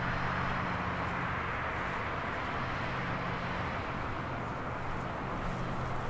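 Steady outdoor background of distant road traffic, with a low engine hum underneath that fades near the end.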